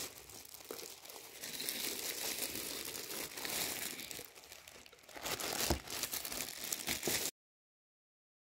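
Packaging crinkling and rustling as a kettle is unwrapped from its box, with a short knock near the middle; the sound cuts out to dead silence near the end.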